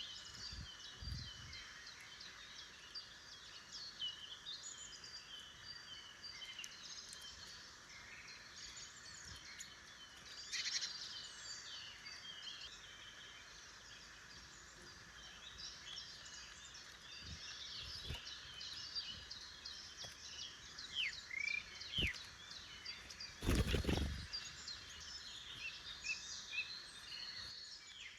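Many small woodland songbirds chirping and calling, with short overlapping notes throughout over a steady outdoor hiss. Near the end comes a brief loud rush of noise, and a few soft low thumps.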